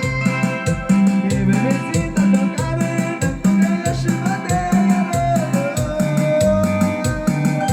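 Live band playing an instrumental dance tune: a steady bass beat about two notes a second, fast shaker percussion, and a sustained melody line over it.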